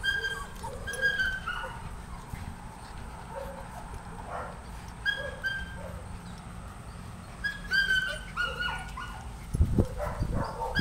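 Puppies whimpering and yipping: short high-pitched cries in quick runs, coming in three bunches. Near the end there is a short burst of rough bumping noise.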